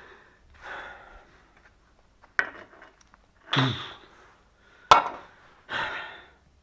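Metal car parts and tools being handled on a tiled floor: a few knocks and short scraping noises, with a sharp metallic clank about five seconds in, the loudest sound.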